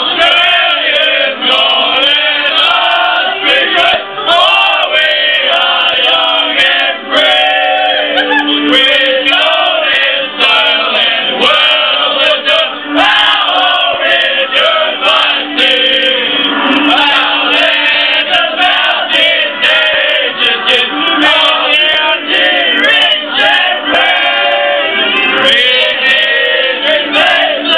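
A group of male voices singing a national anthem together, sustained and continuous.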